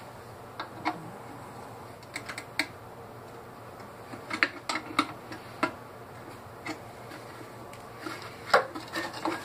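Scattered clicks and taps from the housing of a Bell & Howell 8mm film projector as it is handled and pried at with a screwdriver. The back panel is stuck and will not open. The clicks come in small groups, with the loudest near the end.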